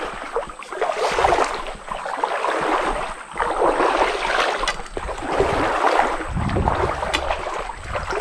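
Running, splashing water noise that swells and fades every second or two, with a short low rumble of wind on the microphone about six and a half seconds in.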